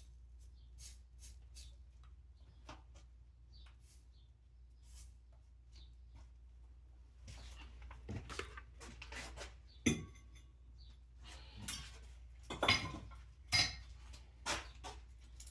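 Metal tools and parts being handled: light clinks and knocks, sparse at first and busier in the second half, with one sharp ringing metallic clink about ten seconds in.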